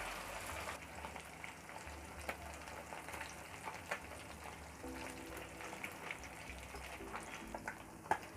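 Red snapper (sankara) fish pieces shallow-frying in hot oil in a kadai: a steady faint sizzle with scattered small crackles and pops.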